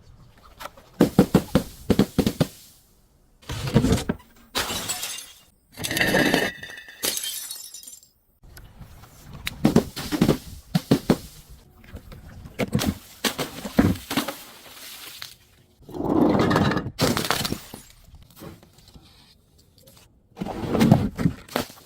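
Glass bottles being crushed and shattering, in a series of separate bursts of crunching and cracking glass. A ringing glassy tinkle comes partway through.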